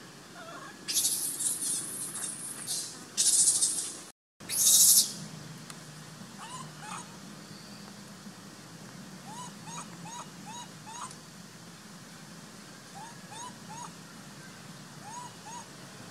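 Baby pig-tailed macaque screaming in three shrill, high-pitched bursts in the first five seconds: the distress crying of an infant monkey. Softer, short rising chirps follow in small groups of two to five.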